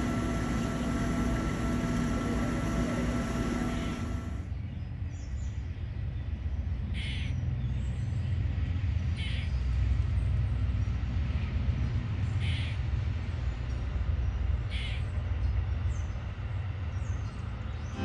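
Reef aquarium equipment humming steadily, with several fixed tones, until a cut about four seconds in. After the cut comes an outdoor low steady rumble with a short high call every two seconds or so.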